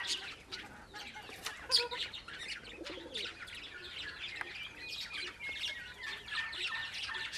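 Dense chattering of many small birds chirping, with a low pigeon coo about three seconds in and one sharp click just under two seconds in.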